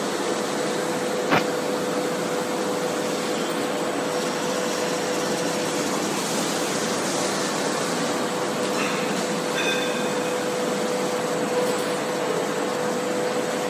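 ABA film blowing machine running: a steady, noisy machine hum with a constant tone through it, and one sharp click about a second in.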